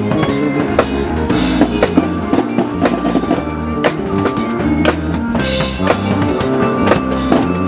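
Loud parade music with a steady drum beat of bass drum and snare hits over sustained low bass notes.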